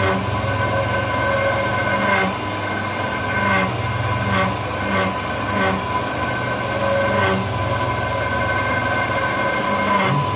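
Vertical milling machine spindle running with a steady hum and whine while its cutting tool bores into a metal plate, with short louder scraping strokes at irregular intervals about once a second.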